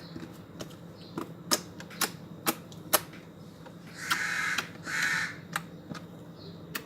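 Slime being poked and squeezed by hand: a string of sharp pops and clicks, with two short hissing squishes about four and five seconds in.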